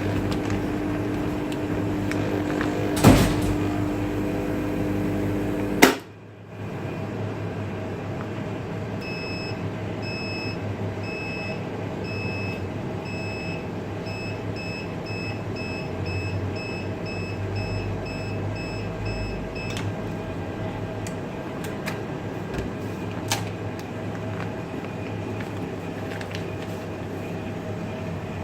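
Vacuum-sealing machine running with a steady hum that cuts off with a loud click, followed by a series of short high beeps that come faster and faster before another click. Low machine hum continues underneath.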